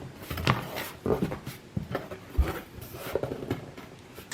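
Cardboard box being handled and opened: scattered rustling and clicks, with a dull thump about two and a half seconds in.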